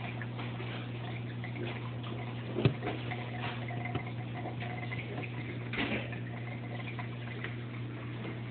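Aquarium filter equipment running: a steady low hum with faint water trickling, under scattered light ticks. A sharp knock comes about two and a half seconds in, and a softer one near six seconds.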